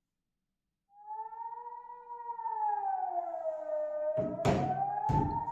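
Multi-horn civil-defence siren sounding the Swiss General Alarm during the annual siren test: it starts about a second in, and its several tones wail slowly down and back up. A viewer identified the siren as a Kockum Sonics Delta-4. Two dull thumps come about four and five seconds in.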